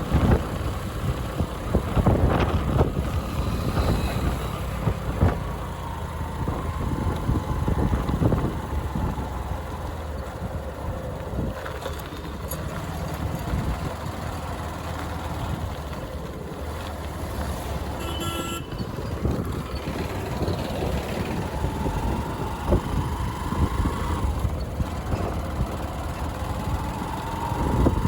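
Motorcycle running on a rough, bumpy road, its engine rumble mixed with wind noise and irregular knocks from the bumps. A brief horn toot sounds about eighteen seconds in.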